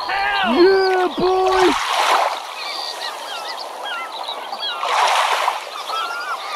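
Bird calls: a few loud honk-like calls in the first two seconds, then many short chirps, with splashes of water about two and five seconds in.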